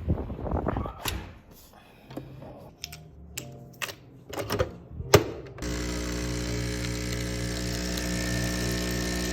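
A few scattered clicks and knocks, then a small electric motor switches on about halfway through and runs with a steady buzz.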